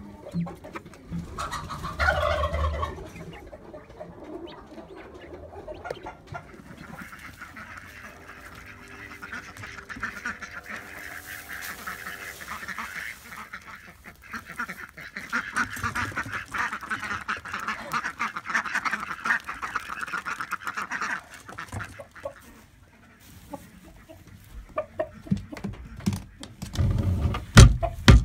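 Chickens clucking and calling, with a drawn-out call near the middle and a long stretch of steady clucking chatter. Loud knocks and thumps near the end.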